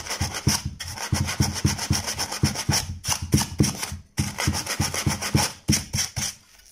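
Abrasive paper scrubbing back and forth on a metal terminal strip of an inverter welder, in quick rasping strokes about four a second with a few brief pauses. The strip is being cleaned so that its solder joint can be renewed.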